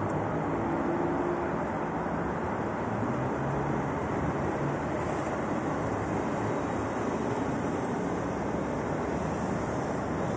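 Steady low rumble from inside a Roosevelt Island Tramway cabin moving along its cables, mixed with road traffic from the streets and bridge ramps below.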